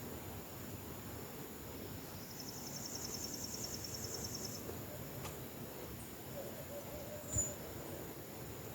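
Rural outdoor ambience: a steady high insect whine, a rapid high pulsed trill lasting about two seconds, and a single dull thud near the end.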